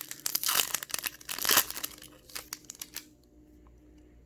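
Wrapper of a Topps baseball card pack being torn open and crinkled, a dense crackle loudest about a second and a half in, followed by a few light clicks that die away about three seconds in.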